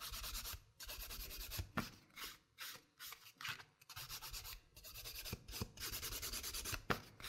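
A 180 grit hand nail file rasping back and forth over an acrylic nail in short, irregular strokes, blending the acrylic into the natural nail and prepping the nail surface.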